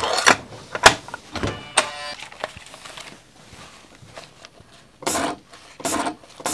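Parts of a Videojet 6420 thermal transfer printer being handled at its ribbon mandrel: a few sharp clicks and knocks, a brief whine about two seconds in, then from about five seconds a run of short rubbing, scraping strokes, about two a second.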